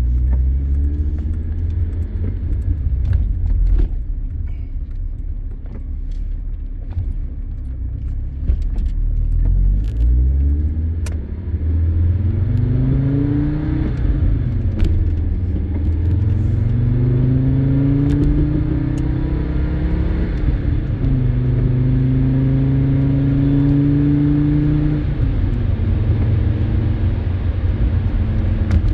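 Audi 90 B2's inline five-cylinder engine rumbling low, then accelerating: its pitch rises, drops back at a gear change, rises again and settles into a steady cruise.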